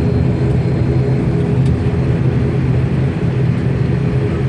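ATR 72-500's turboprop engines running at taxi power, heard from inside the cabin: a steady low drone with several steady hum tones over it.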